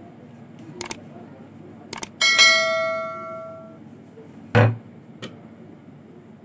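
Kitchen clatter while paratha dough is worked on the counter: a few light knocks, then a metal utensil is struck about two seconds in and rings like a small bell, fading over about a second and a half. A dull thump follows about two seconds later.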